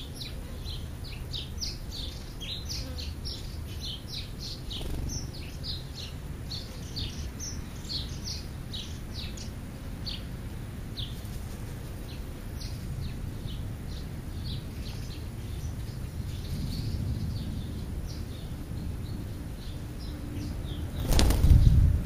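Small songbirds chirping in quick, short, high notes, several a second, thinning out after about twelve seconds. Near the end comes a loud rushing burst, like wings flapping or a gust on the microphone.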